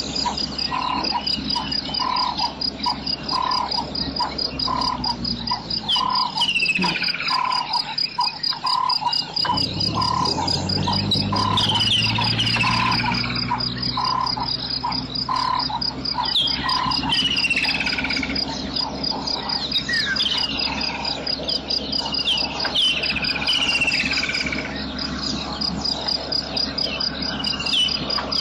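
Bush ambience: a steady fast insect trill, a mid-pitched call repeating a little faster than once a second that stops a bit past halfway, and short falling whistled bird calls repeated now and then. A low hum swells about a third of the way in.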